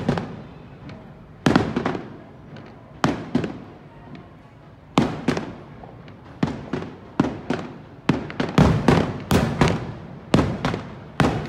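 Aerial firework shells bursting overhead as sharp bangs, each trailing off in an echo. The bangs come a second or two apart at first, then quicker and crowding together toward the end as the display builds.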